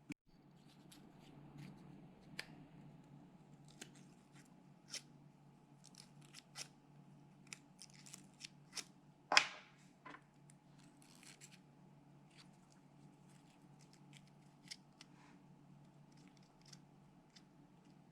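A slip of paper handled against Cherry profile keycaps and Alpaca switches to test for switch interference: light papery scrapes and scattered small clicks, with one much louder click about nine seconds in. A steady low hum runs underneath.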